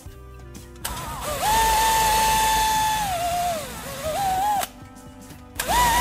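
Electric drill spinning a tapered steel tool inside the evaporator's tube ends to expand them. Its motor whine rises to speed about a second in, holds steady, slows and briefly speeds up again, stops for about a second, then spins up again near the end.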